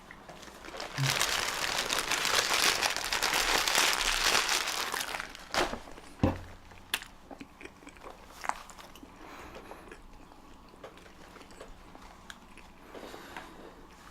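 Paper food wrapping crumpled and rustled close to the microphone for about four seconds, followed by a few sharp clicks and quiet handling noises.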